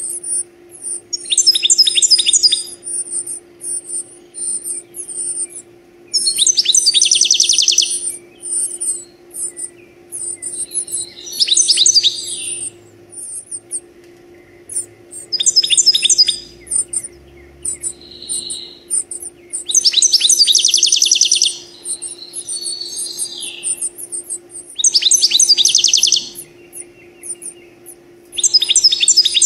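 Goldfinch song: loud bursts of rapid trilled notes about every four to five seconds, with high thin twittering between them, over a faint steady hum.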